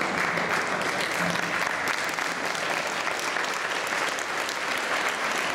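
Crowd of spectators applauding, a steady patter of clapping.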